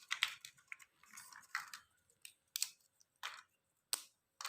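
Dry cinnamon sticks being snapped into small pieces by hand: a series of short, sharp cracks, irregularly spaced about half a second to a second apart.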